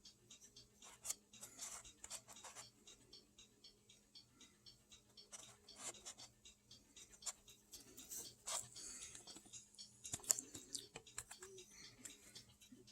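Faint handling noise: irregular light clicks, taps and rubbing, as of small parts and the recording device being handled close up, over a faint steady hum.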